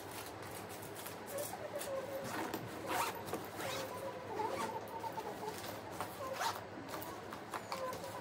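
A luggage zipper being pulled in a few short strokes amid the rustle of things being packed. A faint wavering tone sits in the background.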